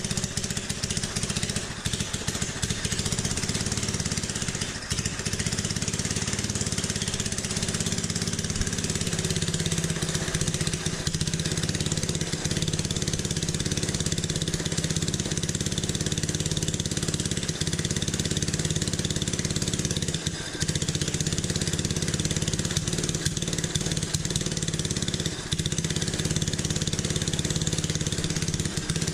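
Junior dragster's small single-cylinder engine, running on methanol, idling steadily.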